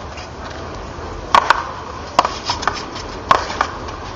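Paddleball rally: the ball cracking off the players' paddles and the wall, a run of sharp hits beginning about a second in, several coming in quick pairs.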